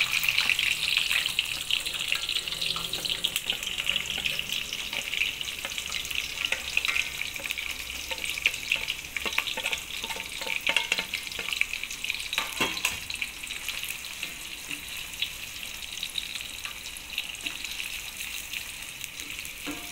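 Sliced onions frying in hot oil with whole spices: a steady sizzle, loudest as they go in and gradually easing off, with scattered crackles and a few sharper clicks.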